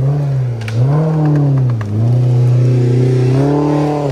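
Side-by-side offroad vehicle's engine revving, its pitch rising and falling in about three surges as the driver works at getting past an obstacle, with a few scattered knocks.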